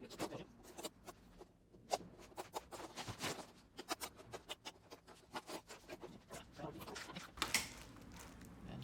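Irregular light clicks, taps and small knocks of hands handling the parts of an opened flat-screen television.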